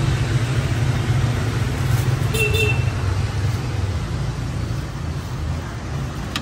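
Street traffic running steadily as a low rumble, with one short high tone about two and a half seconds in.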